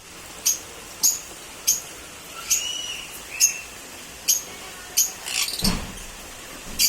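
Caged African lovebirds giving short, sharp, high-pitched chirps, repeated about every half second to second, with a couple of longer call notes in between.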